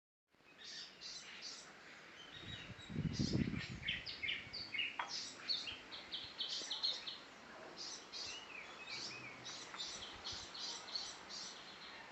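Several garden birds chirping, many short high calls overlapping one another; a low rumble swells and fades about three seconds in.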